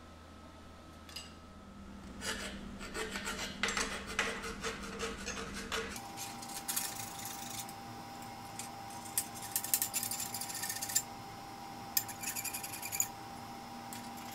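Hand file scraping along the edge of a bent sheet-aluminium bracket, deburring and cleaning up the cut metal. The strokes begin about two seconds in and come in several runs of quick back-and-forth rasping.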